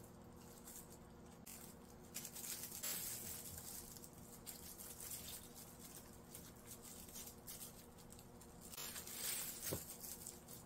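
Silicone pastry brush faintly dabbing and stroking beaten egg yolk onto raw croissant dough, louder in patches a couple of seconds in and near the end, over a low steady hum.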